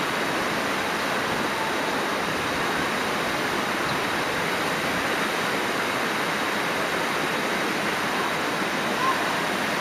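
Waterfall rushing: a steady, even wash of falling water over rock.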